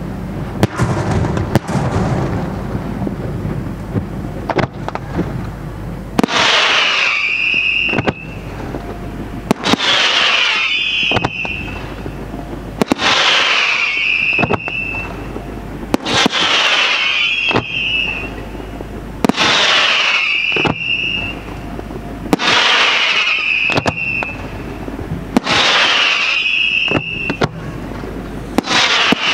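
Aerial fireworks display: a dense barrage of bangs over a low rumble in the first few seconds, then a regular series of sharp reports, each followed by a hiss, about every three seconds.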